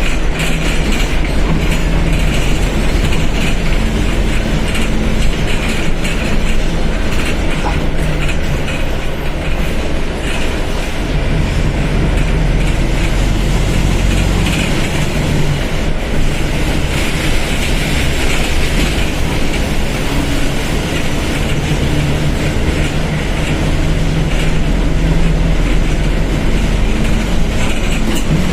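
Mercedes-Benz OF1721 BlueTec 5 bus's four-cylinder turbodiesel running under way, its engine note shifting up and down.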